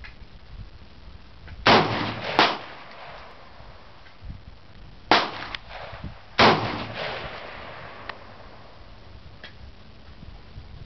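Four rifle shots from a scoped Heckler & Koch rifle, each followed by a rolling echo: two less than a second apart, then a pause of about three seconds, then two more about a second and a half apart.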